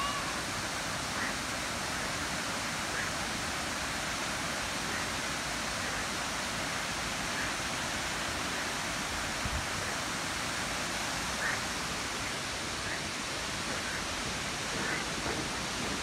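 Steady rush of water from a waterfall, the river pouring over rock ledges at its top.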